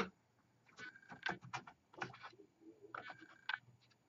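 Clicks and taps of small parts being handled on a wooden board: a thin disc and a clear acrylic ring set down and moved, with a short squeaky rub about a second in and again about three seconds in.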